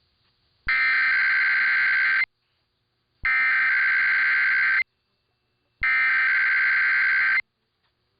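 EAS SAME header: three bursts of screeching digital data tones, each about a second and a half long, with about a second of silence between them. This is the coded header that opens an Emergency Alert System required weekly test.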